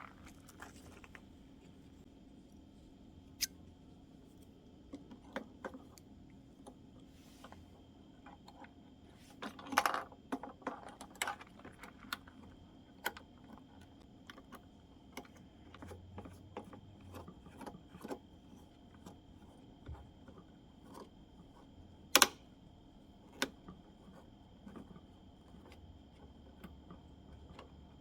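Scattered light clicks and knocks of small objects being handled, with a cluster about ten seconds in and one sharp click about twenty-two seconds in.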